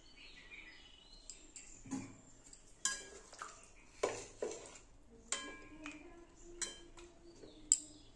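Metal utensil clinking and knocking against a metal cooking pan, about eight separate sharp clinks spread over the seconds, a few of them ringing briefly.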